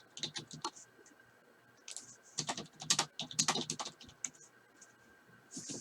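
A sports card hobby box and its wrapping being handled and opened by hand: scattered crackles and clicks of wrapper and cardboard, in two busier spells near the start and from about two and a half seconds in.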